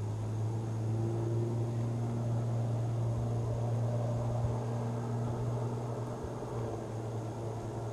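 A vehicle engine running steadily, a low even hum.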